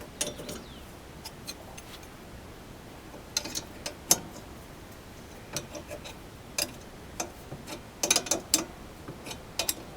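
A wrench working on the front brake caliper bolts: sharp metal clicks, singly and in short quick runs, as the bolts are tightened.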